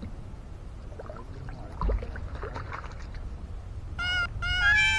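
A hooked herabuna (crucian carp) splashing at the lake surface and the landing net knocking into the water, over wind rumble. About four seconds in, a cartoon cat meow sound effect comes in loud: two short mews, then a longer one.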